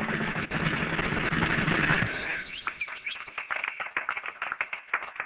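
Projection-show soundtrack: a dense noisy rush with a low hum under it stops about two seconds in, giving way to a quick patter of clicks and short, rising bird-like chirps.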